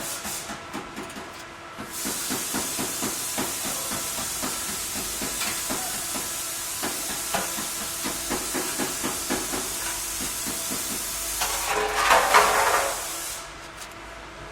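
Steady hiss of air from a workshop compressed-air tool, with scattered small clicks. It starts about two seconds in, swells louder near the end, then cuts off.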